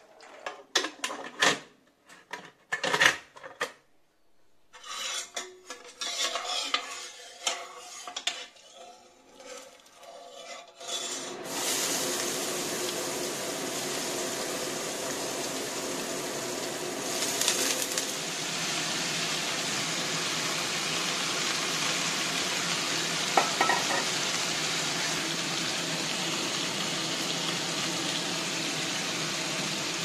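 Cookware and utensils clattering and scraping in a series of sharp knocks for about the first ten seconds. Then a steady sizzle of pointed gourd and potato strips frying in hot oil in a pan, with a few extra clicks from the pan partway through.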